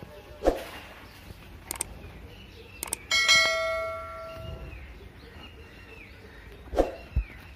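A bell struck once about three seconds in, ringing out and fading over about a second and a half. Birds chirp faintly, and a couple of short knocks come before and after.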